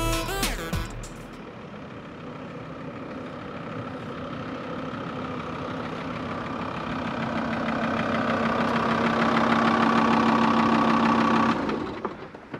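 A motor running steadily and growing gradually louder over several seconds, then cutting off suddenly near the end. The tail of the music fades out in the first second.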